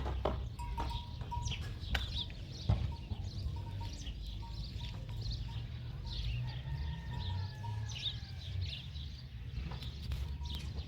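Small birds chirping, many short high calls scattered throughout, over a low steady rumble.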